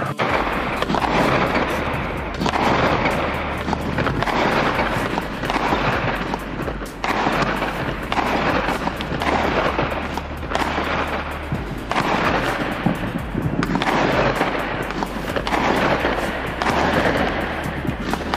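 Background music with a regular swelling pulse about every second and a half over a held bass line, with fireworks bangs and crackle mixed in under it.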